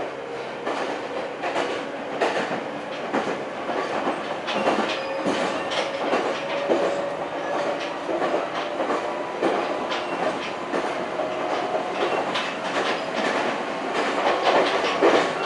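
Meitetsu Gamagori Line electric train running at speed, heard from inside the passenger car: a steady rumble of running noise with irregular clicks of the wheels over the track, a little louder near the end.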